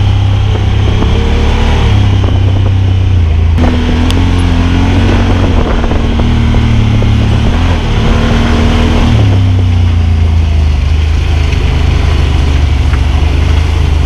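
Honda Talon side-by-side's engine running heard from the cab on a rough dirt trail: a heavy, steady low rumble, its pitch rising and falling between about four and nine seconds in.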